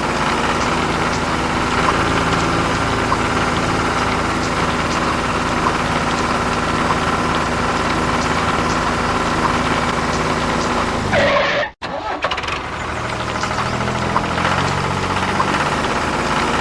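Tractor-style engine running steadily with a fast, even chug. It cuts out abruptly about twelve seconds in and comes back straight away.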